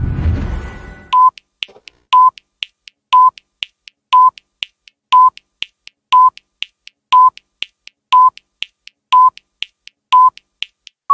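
Countdown-timer sound effect: ten short electronic beeps, one a second, with faint ticks between them, after a brief rushing noise at the start.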